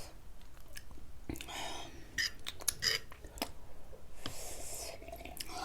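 Eating sounds at a close microphone: chewing and wet mouth noises with scattered small clicks of a utensil against a dish.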